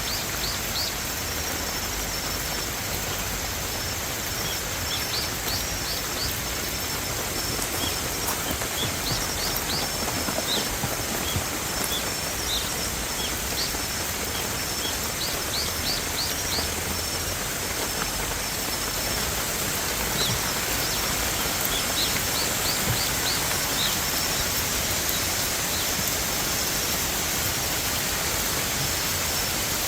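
Steady rush of flowing water, with a bird chirping now and then in quick series of short, high, falling notes.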